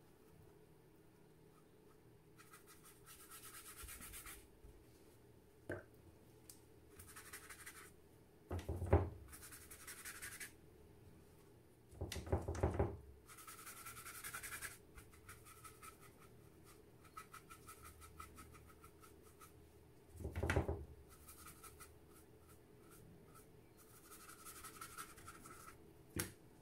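Watercolour brush stroking and scrubbing across paper in repeated short, scratchy passes. A few dull knocks come in between, the loudest about nine seconds in.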